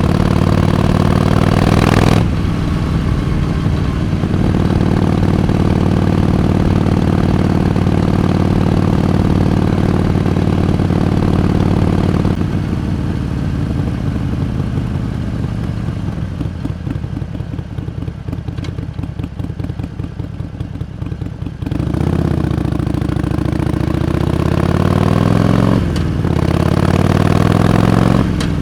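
Harley-Davidson Iron 883's air-cooled V-twin on the move, pulling with a gear change about two seconds in, then holding a steady speed. It rolls off the throttle for several seconds, the note dropping to slow, distinct firing pulses, then accelerates again with rising pitch and another gear change near the end.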